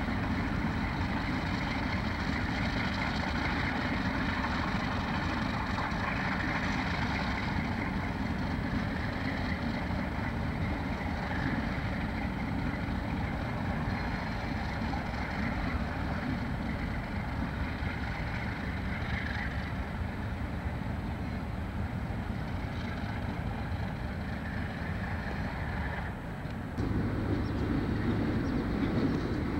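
Three Alco RS-11 diesel locomotives, their V12 251 engines running steadily as they shove a cut of empty hopper cars slowly along the track. Near the end the sound drops for a moment and then comes back lower and heavier.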